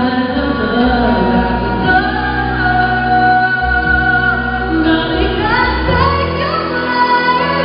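A woman singing a slow pop ballad live into a microphone over instrumental accompaniment, holding long notes and climbing in a stepped run near the end.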